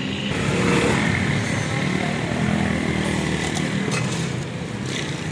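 Street traffic: a small vehicle engine running steadily, getting louder about a second in, with a few light clicks near the end.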